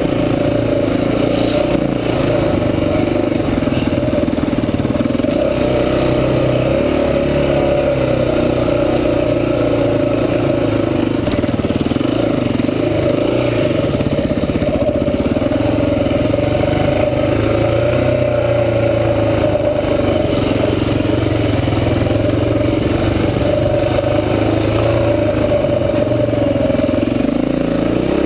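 Honda XR400 dirt bike's single-cylinder four-stroke engine running loud and close while riding, its revs rising and falling with the throttle without a break.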